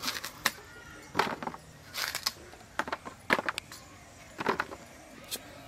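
A heavy knife cutting a bottle gourd into chunks by hand: a series of short, crisp, irregular cuts as the blade goes through the firm flesh and pieces drop onto a woven bamboo tray.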